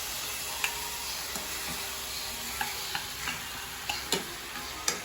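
Tomatoes frying in hot oil with garlic, a steady sizzle, while a utensil stirs them and knocks against the pan about half a dozen times.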